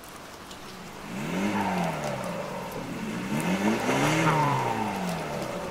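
Car engines revving, the pitch rising and falling in repeated arcs, with several revs overlapping about four seconds in.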